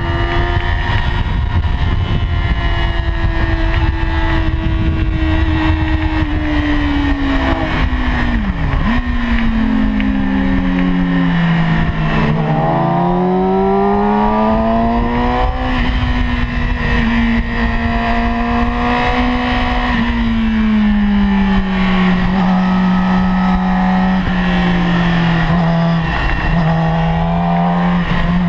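2008 Yamaha YZF-R6's 600 cc inline-four engine running hard at high revs, heard from onboard with wind rushing past. The note sinks slowly, drops sharply with gear changes about nine and twelve seconds in, climbs again under acceleration, and steps down once more about twenty-one seconds in.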